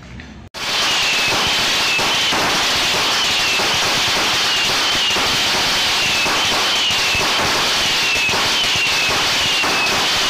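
A long string of firecrackers going off in a dense, unbroken crackle of sharp cracks, starting abruptly about half a second in and staying very loud and steady.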